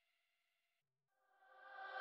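Near silence between background music tracks: a faint tail of the last track dies away, and the next track fades in during the final half-second.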